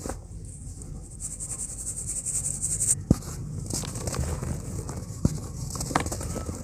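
Dry pure cement powder and crumbs hissing and pattering as handfuls are crumbled and sifted through fingers, with a few sharp cracks as pieces of a cement block break, the loudest about three seconds in.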